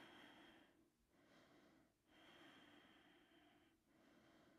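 Near silence, with faint breathing coming and going in slow, drawn-out breaths about every second or two.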